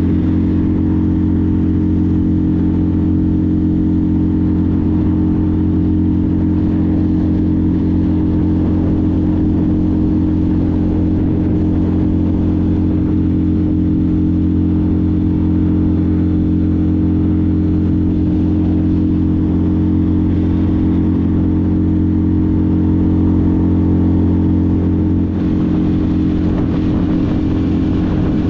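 Outboard motor of a small open boat running steadily under way at a constant speed, a continuous engine hum with a steady pitch. The sound shifts slightly near the end.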